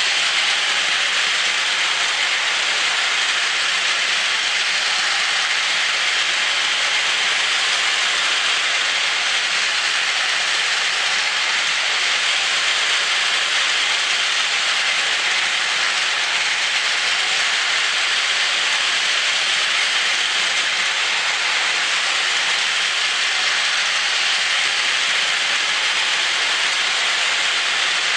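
Two Plarail toy trains, an E5 Hayabusa and an E6 Komachi, running together around plastic track, their small battery-driven motors and gears giving a steady high whirr with the rattle of plastic wheels on the rails.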